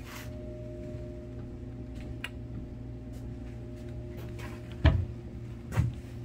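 A bicycle rear wheel with its freewheel handled on a wooden workbench: a few light clicks, then two louder knocks about five and six seconds in as it is set down, over a steady low hum.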